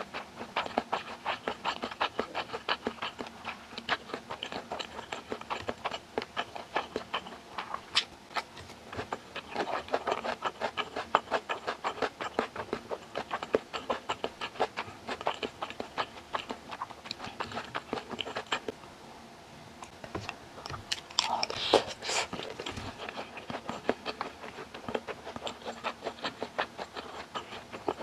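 Mouth chewing japchae (glass noodles with vegetables and rice): a rapid, continuous run of wet clicks and smacks. A short pause comes about two-thirds of the way through, followed by a louder stretch of chewing.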